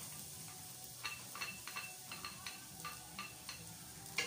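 Wooden spoon stirring minced garlic in hot coconut oil in a stainless steel pot: a faint sizzle, with a run of quick knocks of the spoon against the pot from about a second in.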